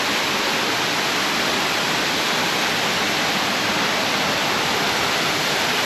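Small waterfall pouring and splashing, close by: a steady, even rush of falling water.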